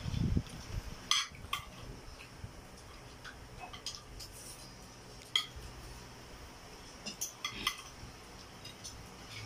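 Spoons and forks clinking and scraping against ceramic plates and bowls as people eat: scattered sharp clinks, a second or so apart, with a low thud right at the start.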